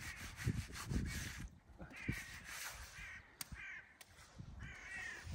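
Crows cawing, a run of about five or six harsh calls spread over a few seconds, with some low rumbling under the first calls.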